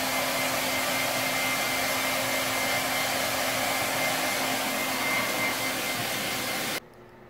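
Handheld hair dryer blowing steadily while drying a dog's coat: an even rush of air with a faint steady whine. It cuts off abruptly near the end.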